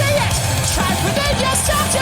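Rock song playing loud, a sung melody line over a full band.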